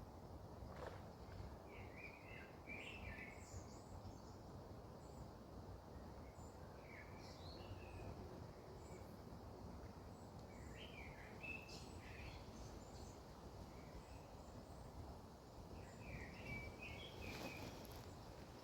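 Small birds chirping in short phrases every few seconds over a faint, steady low background hum of outdoor noise.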